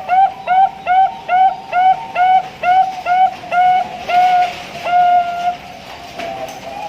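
Bangkok-bred zebra dove (perkutut) singing: a rapid run of a dozen short, whistled cooing notes, about three a second and slowing slightly, that closes on a long held final note, the long ending ('ujung panjang') prized in contest birds. Fainter cooing follows near the end.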